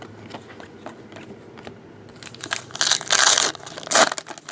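Plastic or foil trading card wrapper crinkling and crumpling as cards are unwrapped: a few light clicks at first, then loud crinkly handling about two and a half seconds in and again near the end.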